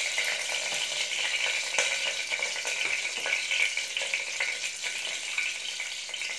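Hot oil sizzling steadily with small crackles in an aluminium pressure cooker as cumin seeds, green chillies and garlic cloves fry in it: the tempering stage of a cooker kurma.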